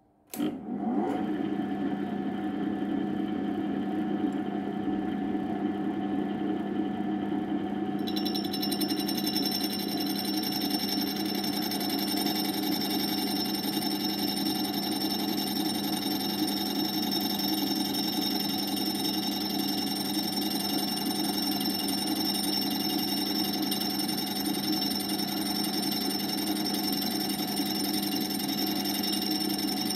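Machine spindle starting suddenly and running a diamond grinding disc with a steady hum. From about eight seconds in, a high-pitched whine joins as the disc grinds the 6 mm end mill, fed in very slowly; the sound of the cut indicates the load on the disc.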